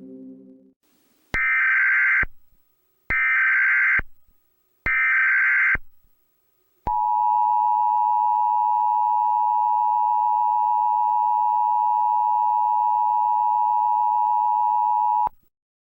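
Emergency Alert System broadcast tones: three short bursts of SAME header data tones, each under a second, then the steady two-tone EAS attention signal (853 and 960 Hz) held for about eight seconds before it cuts off abruptly. The sequence signals that an emergency alert message is about to follow.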